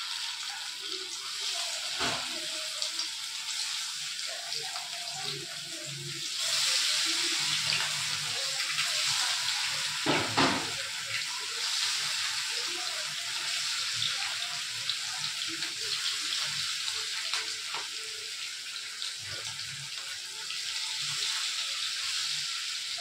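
Marinated chicken kebab pieces deep-frying in hot oil in a kadai: a steady sizzling hiss that grows louder about six seconds in, as more pieces go into the oil. Two brief knocks break in, about two and ten seconds in.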